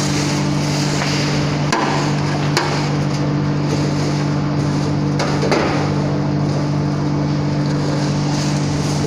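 Continuous namkeen frying machine running: a steady, loud machine hum with a hiss over it, and a few sharp metallic knocks, two of them about two seconds in and two more about five seconds in.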